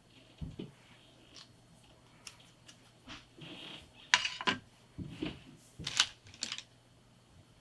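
Scattered light clicks and taps of small makeup containers and tools being handled and set down, loudest about four and six seconds in.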